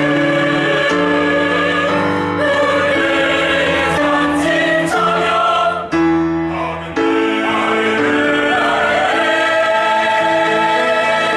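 Church choir singing a gospel hymn anthem in full harmony, moving through sustained chords with a brief break about six seconds in, then holding a long chord from about nine seconds in.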